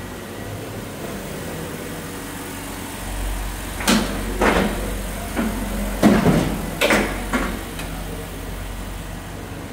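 Adast Maxima 115 paper guillotine cutter running with a steady hum. A low rumble comes in about three seconds in, followed by a cluster of about seven sharp knocks over the next few seconds.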